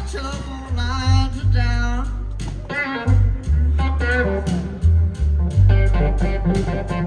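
Live electric blues band playing the instrumental intro: a lead electric guitar playing bent, wavering notes over bass guitar and drums.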